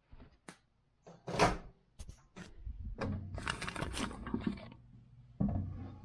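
Handling noises at a countertop microwave with its door open: a few sharp clicks, the loudest about a second and a half in, then a couple of seconds of irregular knocks and scuffs as a Ziploc bag of salmon is set inside.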